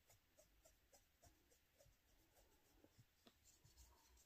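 Near silence: faint room tone with soft, evenly spaced ticks, about four a second.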